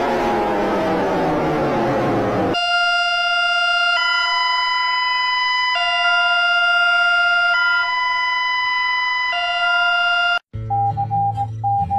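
Emergency alert alarm audio. It opens with a siren-like sound sliding down in pitch, then becomes a steady electronic two-tone alert that alternates between a lower and a higher pitch about every two seconds. About ten seconds in it cuts off abruptly, and a pulsing beep over a synth bass begins.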